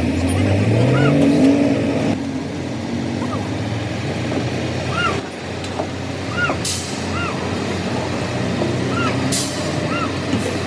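Heavy truck's diesel engine running, revving up about a second in, with short hisses of released air around the middle and near the end. Repeated short chirps sound throughout.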